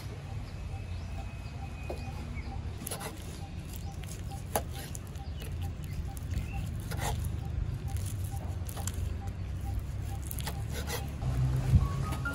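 Cleaver slicing through sea snail meat and knocking on a wooden chopping block, sharp knocks every second or two at an uneven pace, over a steady low rumble.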